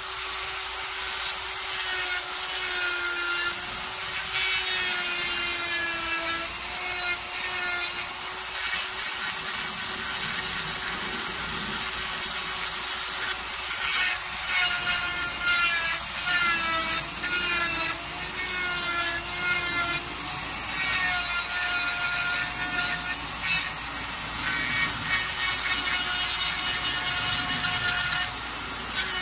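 Dremel rotary tool with a tapered burr grinding paint and wood out of a carved owl's eye. It gives a steady high whine that wavers slightly in pitch, with rasping grinding that comes and goes as the burr bites.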